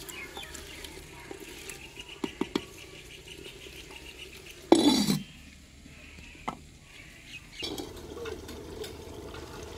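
Wooden spatula stirring and tapping potatoes and spinach in a clay cooking pot, then a clay lid set down on the pot with one loud clink about halfway through. The low sizzle of the curry drops while the lid is on and comes back when it is lifted near the end.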